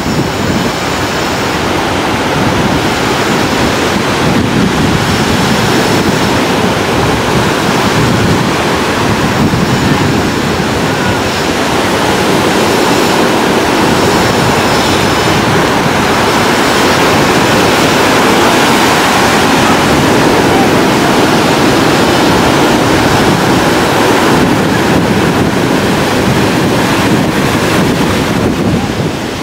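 Ocean surf breaking and washing up a sandy beach in a steady, loud rush, with wind buffeting the microphone.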